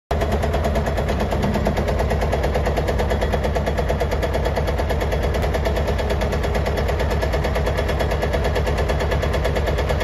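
Bobcat S250 skid steer's 75 hp Kubota diesel engine running steadily with a fast, even rattling pulse. The seller lists the engine as smoking and having a tap.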